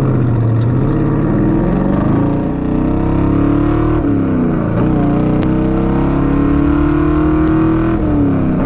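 1974 Chevy Nova drag car's carbureted engine under acceleration, its pitch climbing through each gear and dropping at three upshifts.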